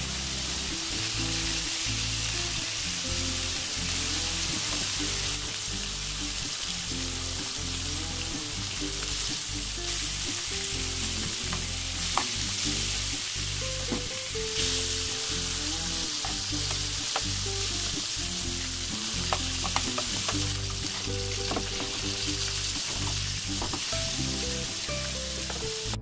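Thin-sliced pork belly sizzling steadily as it fries in a nonstick pan, with a few light clicks as the slices are turned with a utensil.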